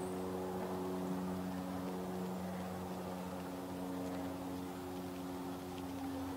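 Steady low machine hum, several pitches held at once.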